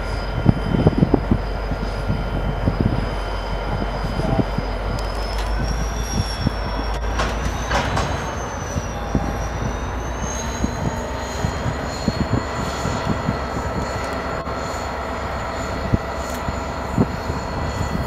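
G class diesel-electric locomotive running as it slowly tows a train of wagons, the wagons rolling with scattered clunks and knocks. Several thin high tones whine steadily over a low rumble, drifting slightly in pitch.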